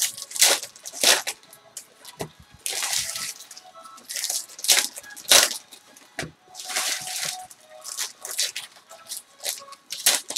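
Foil trading-card pack wrappers crinkling and tearing as football card packs are ripped open and crumpled by hand, in irregular short bursts about once or twice a second.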